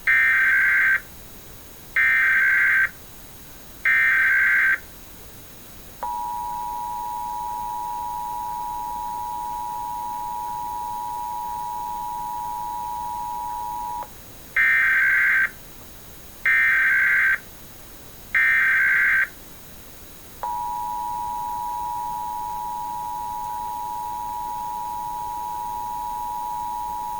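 Emergency Alert System test signal: three short bursts of SAME digital header data about two seconds apart, then the steady two-tone attention signal (853 and 960 Hz) held about eight seconds. The sequence then repeats, with three more bursts and a second long two-tone attention signal.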